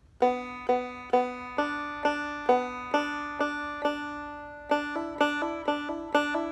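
Banjo played clawhammer style: plucked notes about twice a second, each left to ring. From about five seconds in the notes come quicker, with pitch steps from hammer-ons and pull-offs fretted up the neck.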